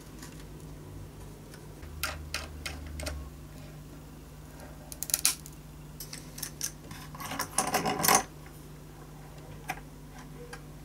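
Small clamps clicking and rattling as they are handled, fitted and screwed tight onto a violin's glued ribs and end block: scattered clicks, a sharp cluster about five seconds in, and the densest, loudest clatter around seven to eight seconds in.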